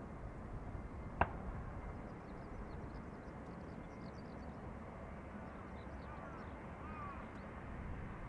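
Faint, steady low rumble of a distant jet airliner on approach, with faint bird chirps and a single sharp click about a second in.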